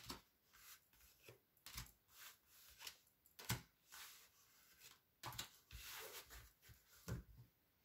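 Tarot cards being drawn from a spread pack and laid face down on a table: a string of faint short taps and paper rustles, with a longer sliding rustle about two thirds of the way through.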